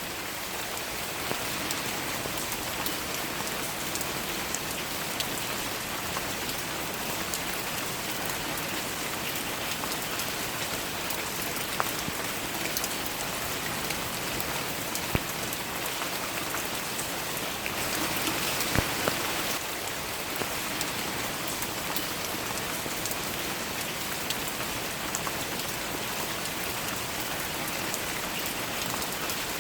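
Steady rain falling, a dense even hiss with single drops ticking sharply now and then. The rain swells briefly about two-thirds of the way through.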